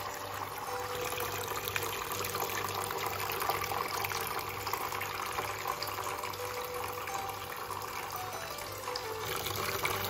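Small indoor stone fountain running: a steady trickle and splash of water falling down its stacked stone tiers into the basin.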